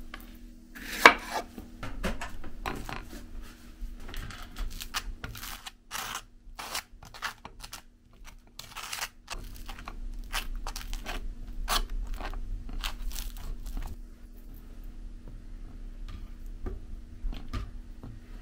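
A knife slicing strawberries on a wooden cutting board, with short sharp knocks of the blade on the board, the loudest about a second in. Later a table knife scrapes cream cheese across toast.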